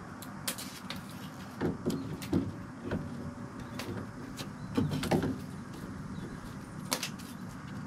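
A steel pick clicking and scraping on a rusted cotter pin in a tie rod end's castle nut, with irregular sharp metal clicks spread through.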